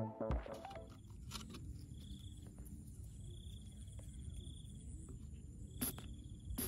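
Quiet field ambience: an insect trilling high in short bursts, half a second to a second long, over a low rumble of wind, with a few light clicks.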